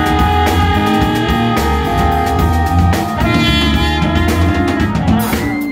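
Live jazz band with a trumpet solo over electric guitar, low bass notes and drum kit. The trumpet turns brighter about three seconds in.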